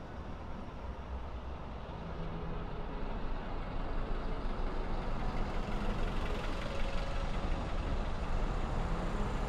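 Car driving along the road: steady low road rumble and tyre noise, getting a little louder over the first few seconds.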